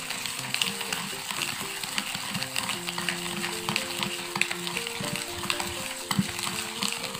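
Coffee, sugar and water being whipped fast by hand in a ceramic plate with a metal utensil: continuous scraping and clicking against the plate as the mixture is beaten into foam. Background music with sustained notes plays underneath.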